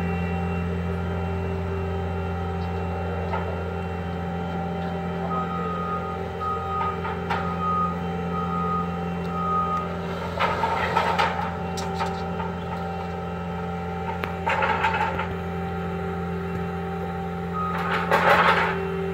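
Skid-steer loader's engine running steadily as it moves over ground mats, its reversing alarm beeping for several seconds partway through. Three short bursts of rough noise break in over the engine, the loudest near the end.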